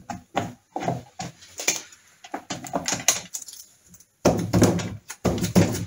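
Hand work on the outer gearbox casing of a Triumph Trident T150V engine: irregular light clicks and knocks of metal parts being handled and seated. About two-thirds of the way in it gives way to louder, denser rustling and knocking.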